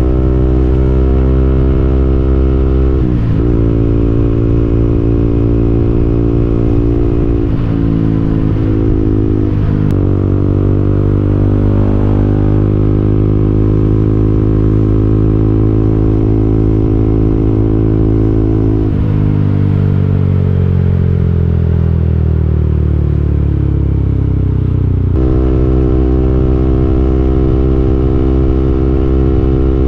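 KTM Duke 200's single-cylinder four-stroke engine running while riding, with the pitch dipping briefly a few times around eight to ten seconds in, falling steadily as the bike slows from about nineteen seconds, then switching abruptly to a steady lower note about twenty-five seconds in.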